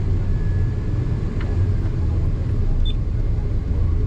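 Heavy farm machinery engine running steadily with a low rumble, during the combine's last unload of corn into the grain cart.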